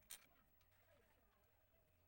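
Near silence: faint room tone with one short click just after the start.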